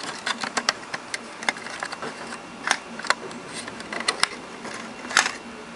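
Irregular small clicks and taps of a plastic housing and circuit board being handled, as a frequency inverter's control board is fitted into its case, with a few sharper clicks near the middle and near the end.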